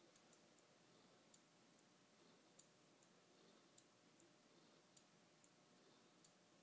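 Faint, regular clicking from a small coffee-cup Stirling engine running: a sharper click about every 1.2 seconds with a softer click between, over a quiet hiss.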